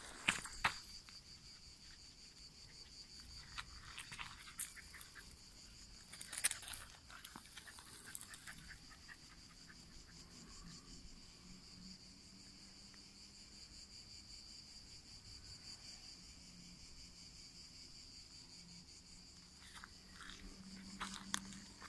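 Steady high-pitched chirring of insects in dry scrub, with footsteps crunching on dry earth, stones and brush in short bursts near the start, around four to eight seconds in, and again near the end.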